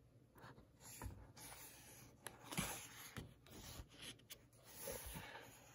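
Faint rustling and rubbing of paper as a picture book's page is turned and smoothed by hand, with a few light taps.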